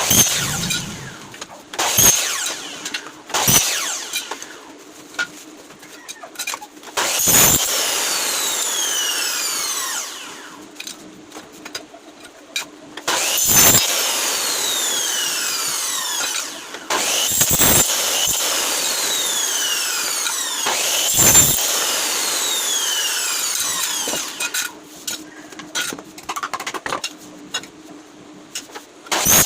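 Power tool cutting or working wood in several runs of a few seconds each, with sharp knocks in between.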